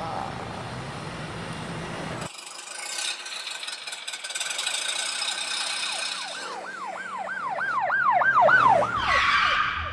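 An ambulance siren wailing in a fast rising-and-falling yelp. It comes in about two-thirds of the way through and grows louder as it approaches.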